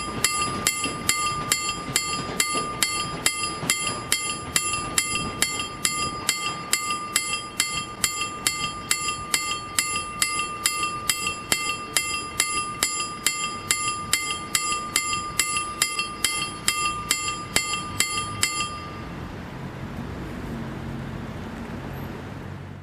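KLD-40 railway crossing warning bell ringing with steady, even strikes, about two and a half a second, signalling that the crossing is closed for a train. The ringing cuts off sharply near the end, leaving a low hum.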